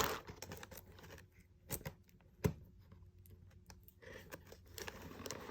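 Plastic model kit parts being handled on a table: a few light clicks and taps, then soft rustling for the last second and a half.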